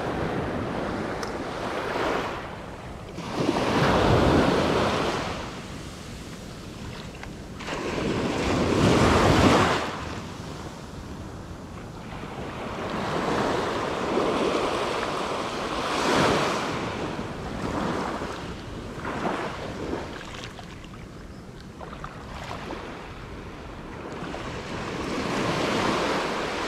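Small waves breaking and washing up a sand beach, swelling and falling every few seconds, the loudest about nine seconds in, with wind buffeting the microphone.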